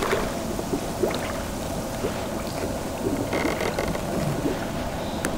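Small clicks and taps of a chrome metal fishing rod holder being adjusted by hand, one sharper click near the end, over a steady rushing, water-like noise.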